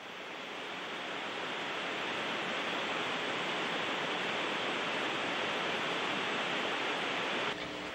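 Steady radio static: the hiss of an open space-to-ground communications channel with nobody keying in. It builds over the first couple of seconds and dips slightly near the end.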